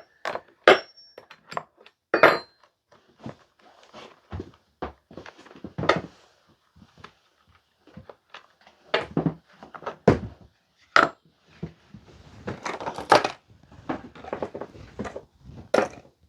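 Irregular metal clinks, clicks and knocks of hand tools and chainsaw parts being handled as the bar is taken off a Stihl MS290 chainsaw, a couple of the clinks ringing briefly near the start, with some scraping about two-thirds of the way through.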